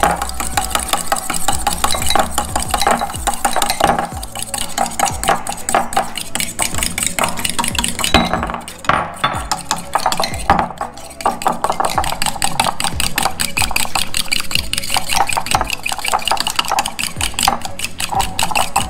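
A metal utensil whisking egg yolks fast in a glass bowl, a rapid rhythmic clicking against the glass as hot melted butter is beaten in to emulsify a hollandaise. The clicking eases for a moment about nine to eleven seconds in.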